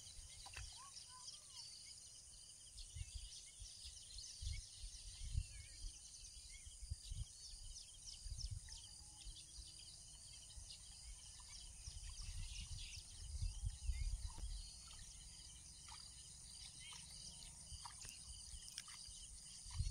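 Faint open-country ambience: a steady high insect hum with scattered small bird chirps, under irregular low rumbles of wind on the microphone that swell briefly about two-thirds of the way through.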